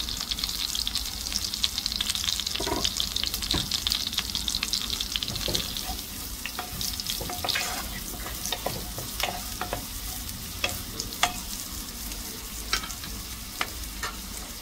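Diced onion sizzling in melted butter in a hot frying pan, stirred with a wooden spatula that scrapes and clicks against the pan. The sizzle is strongest in the first few seconds and eases off, while the spatula clicks come more often in the second half.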